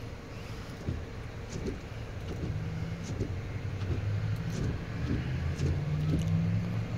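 Car engine idling with a steady low hum that grows a little stronger about a third of the way in, with a few faint clicks and knocks.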